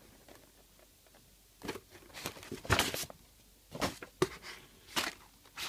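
Printed paper sheets rustling as they are handled and flipped, in a string of short rustles that begin about a second and a half in.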